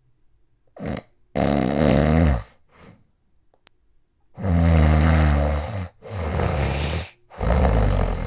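Extremely loud, rough snoring from a man with sleep apnea: after a moment of quiet, four heavy snoring breaths come one after another with short gaps between them.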